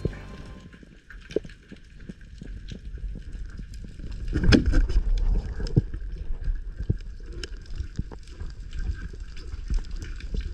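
Water sounds around a spearfishing diver: low sloshing and gurgling with many scattered sharp clicks and crackles, and a louder burst of water noise about four and a half seconds in.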